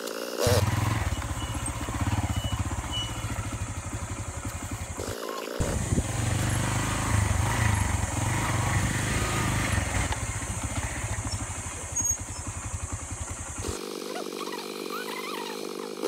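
Motorcycle engine running with a steady low pulse as it is ridden along a dirt trail. It is broken by a brief gap about five seconds in and stops near the end, where a few short chirps are heard.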